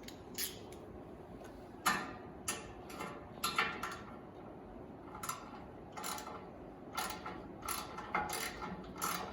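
Irregular sharp metallic clicks and clinks, about a dozen, as a tool works on a wood-burning stove's door hinges to adjust them, over a low steady hum.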